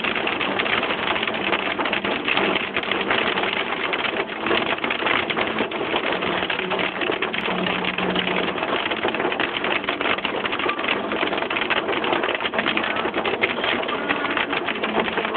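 Hail pelting the roof and windshield of a Ford Edge, heard from inside the cabin: a loud, dense, unbroken clatter of hard ticks.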